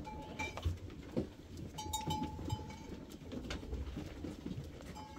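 Livestock bells ringing: short, clear metal clangs a few times at irregular intervals, as bell-wearing animals move about, with scattered faint knocks.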